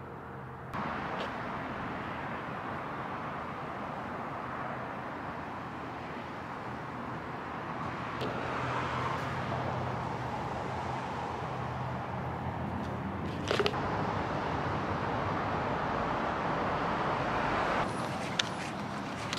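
Steady outdoor background noise that steps up in level just under a second in, with a brief louder noise about thirteen and a half seconds in. Footsteps on pavement start near the end.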